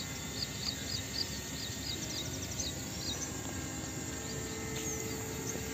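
A small bird chirping in a quick series of short, high notes, about three or four a second, that stops about three seconds in, with a few single chirps later. Under it runs a steady outdoor background hiss and the faint, steady hum of a small hovering quadcopter drone.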